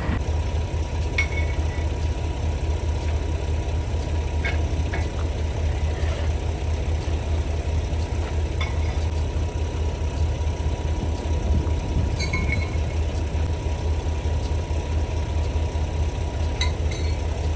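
Semi-truck's diesel engine running steadily, a low drone, with a few faint light clicks here and there.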